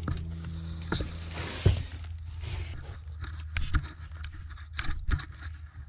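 Scraping and knocking as things are moved and gathered up during a cleanup, with a scrape about a second and a half in and scattered knocks, over a steady low hum.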